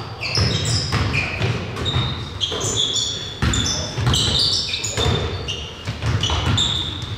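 Basketball game play on an indoor court: a ball bouncing with dull thuds and sneakers squeaking many times in short high chirps on the floor, in a large echoing gym.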